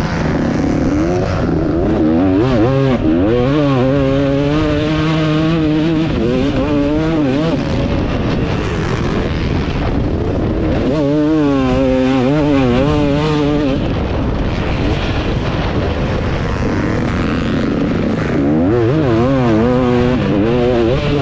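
A 2018 KTM 250 SX two-stroke motocross bike with a KTM factory pipe and Pro Circuit R304 shorty silencer, ridden hard: the engine note rises and falls with the throttle in three stretches. Between them it drops back under a steady rush of wind over the helmet microphone.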